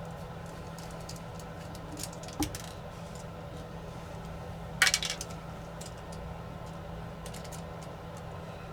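Small metallic clicks and light taps of tiny screws and a precision Torx screwdriver during drone disassembly, with one louder, brief clatter of small metal about five seconds in.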